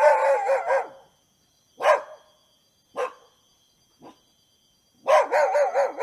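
A dog barking: a quick run of barks at the start, then single barks about two and three seconds in, a faint one a second later, and another quick run near the end.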